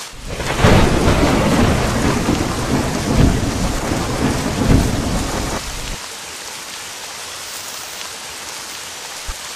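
A thunder rumble over steady rain. The thunder swells in about half a second in and dies away around six seconds, leaving the even hiss of rain.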